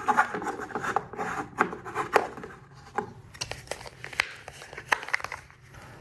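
Objects being picked up and handled on a work surface: a run of small clicks and taps with rubbing and scraping between them.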